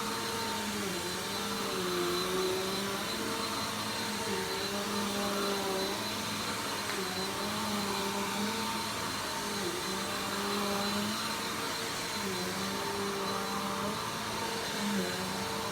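Vacuum cleaner running steadily, its motor pitch dipping and recovering again and again as it is worked back and forth over the floor.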